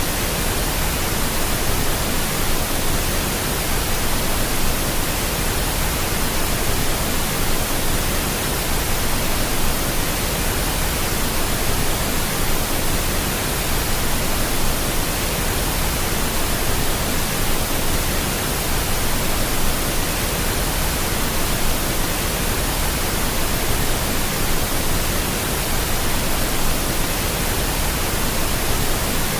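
Steady pink noise: an even, unchanging hiss spread across the whole range of pitch.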